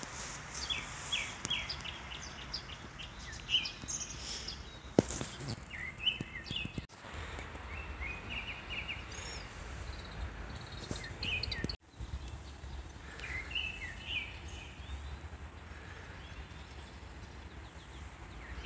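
Outdoor birdsong: small birds chirping in short calls now and then over a low steady rumble. The sound cuts out abruptly twice, about seven and twelve seconds in.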